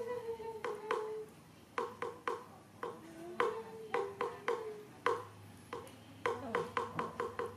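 A young macaque chewing custard apple and smacking its lips: a run of short, sharp wet clicks, at times several a second. A held pitched tone comes and goes alongside.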